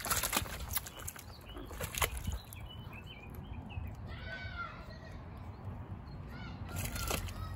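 A quail splashing and flapping in shallow water in a plastic paddling pool: several sharp splashes in the first two seconds, then quieter paddling. Faint high chirping calls come in about halfway through and again near the end.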